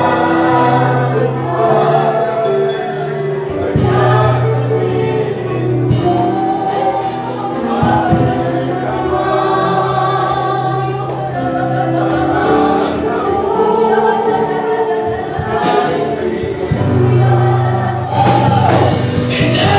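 A congregation singing a Tagalog worship song to instrumental accompaniment, with long, steady low notes held under the voices.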